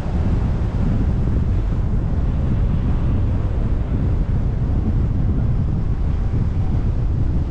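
A car driving: a steady, loud low rumble of road noise with wind noise on the microphone.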